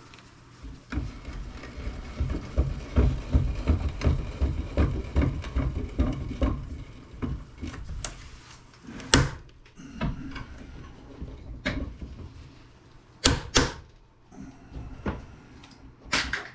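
Forcing open the small plastic housing of a continuity tester: a quick run of dull knocks, then several sharp cracks as the plastic gives way.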